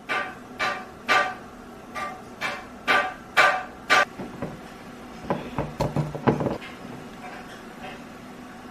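A run of about nine sharp knocks with a ringing pitch, roughly two a second, stopping after about four seconds. About a second later comes a short burst of clicking and clattering handling noise.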